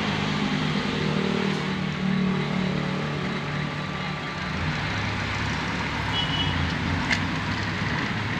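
Car air-conditioner blower fan running on test: the motor spins its blower wheel with a steady hum under an even rush of air. There is a faint click about seven seconds in.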